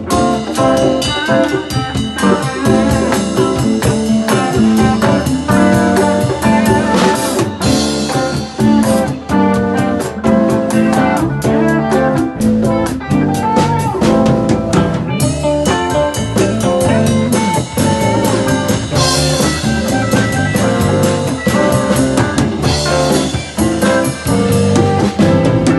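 Free improvised music: a drum kit played with a pitched string instrument, with busy drumming and cymbal washes several times.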